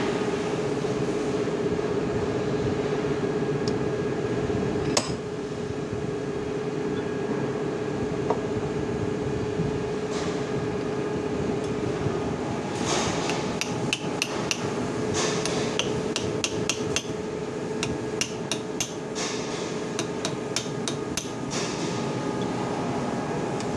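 Hammer striking a steel punch on a welding machine's cooling-fan bearing clamped in a bench vise, during the bearing replacement. A single knock comes about five seconds in, then a long run of quick, uneven metal-on-metal blows over the second half, over a steady hum.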